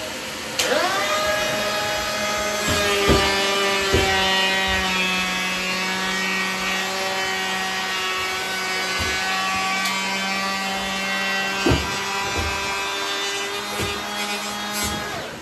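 Electric hand planer starting up about half a second in, its motor quickly rising to speed and then running at a steady pitch, with several knocks along the way; it stops near the end.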